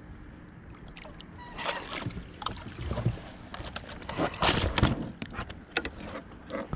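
Splashing and irregular knocks and rustles as a hooked fish is pulled from the water and swung against the plastic hull of a sit-on-top kayak, loudest a little past the middle.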